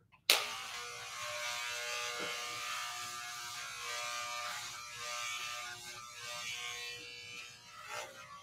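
Electric hair clippers switch on about a third of a second in and run with a steady buzz while being passed over the scalp, trimming leftover patches of a freshly shaved head.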